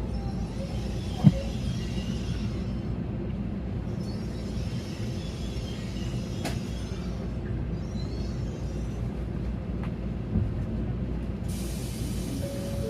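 Interior of a Shinkansen bullet-train car: the steady low rumble of the train running on the rails. There is a short click about a second in and a sudden hiss near the end.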